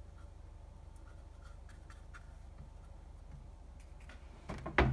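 Small brush stroking and dabbing acetone onto bare sanded plastic trim: faint scratchy brushing with light ticks over a low steady hum, then a few sharp, much louder clicks near the end.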